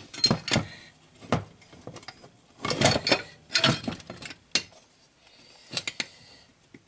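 Irregular metal clinks and clanks as a steel crankshaft press tool is handled and fitted against a chainsaw crankcase half, busiest in the middle.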